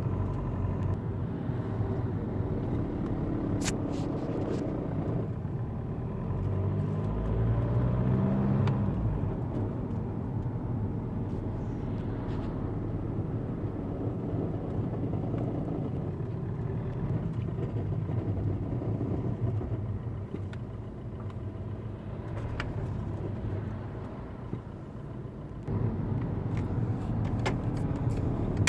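Volkswagen Golf 2.0 TDI 140 four-cylinder diesel with DSG gearbox running steadily, carrying a noise the owner considers abnormal. The pitch rises briefly about eight seconds in, and a few sharp clicks come through.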